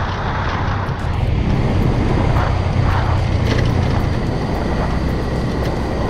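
Small step-through motorbike engine running steadily while riding, with wind rushing over the microphone.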